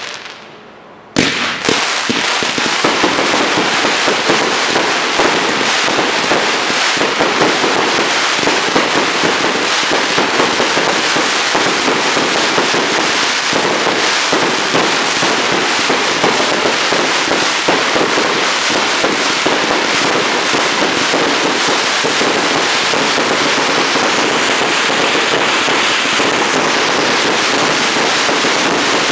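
Fireworks: after about a second of lower level, a sharp bang sets off a continuous hiss and dense crackling from ground fountains spraying sparks, packed with many small reports.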